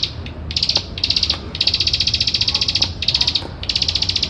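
Plain prinia (ciblek sawah) giving rapid, dry clicking trills in repeated bouts, one of them over a second long. This is the species' fast 'ngebren' chatter.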